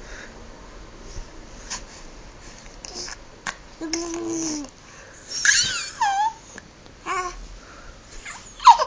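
Baby squealing and babbling. There are short high-pitched squeals that glide up and down in pitch, a lower babbled sound about four seconds in, and a sharp loud squeal near the end.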